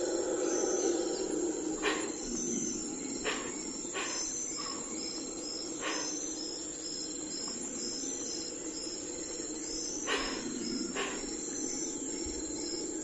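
Outdoor dawn ambience: insects chirping in a regular high-pitched pulsing rhythm over a steady low background noise, with a handful of sharp clicks or knocks.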